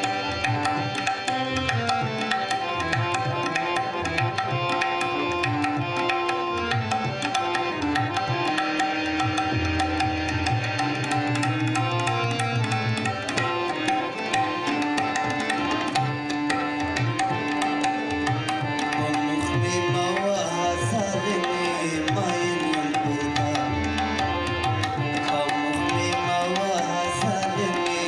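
Harmonium playing a melody in sustained reed tones, with tabla accompaniment striking a dense, steady rhythm: an instrumental passage of a Pashto song.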